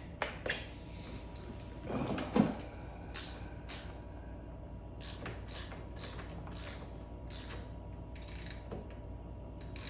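Hand-tool work on a mini bike's front fork: two sharp clicks, a louder metal clunk about two seconds in, then a run of about ten short scraping strokes.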